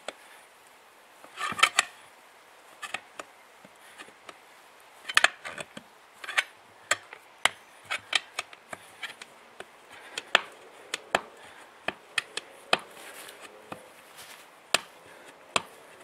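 Steel tyre lever prising a 4WD tyre's bead up over the lip of a 17-inch alloy rim, giving an irregular string of sharp clicks and knocks, bunched a little at about a second and a half, five and six and a half seconds in.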